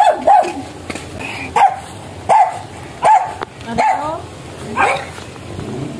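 A dog barking: a string of about seven short barks, spaced roughly half a second to a second apart.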